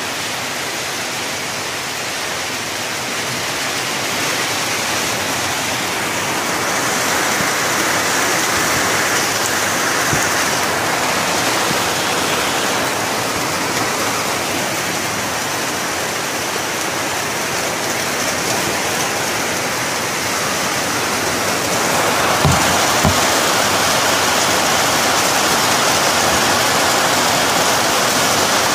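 Heavy storm rain pouring steadily on tree leaves, a typhoon downpour. It grows louder a few seconds in, eases in the middle and swells again near the end, where two short low thumps come close together.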